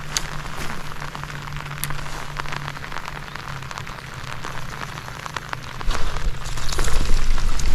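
Rain pattering, a steady hiss dotted with small drop ticks. A low rumble comes in about six seconds in and grows louder.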